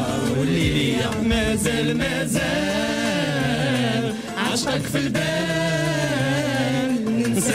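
Male and female voices singing a Moroccan Arabic song over backing music. The sound dips briefly about four seconds in.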